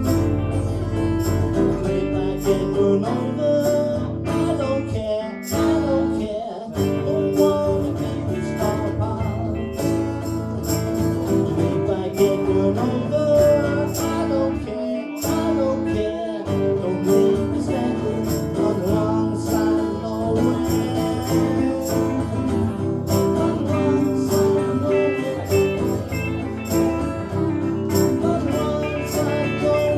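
Live acoustic guitar music: a steadily strummed acoustic guitar with a second guitar playing lead lines, and a man singing at times.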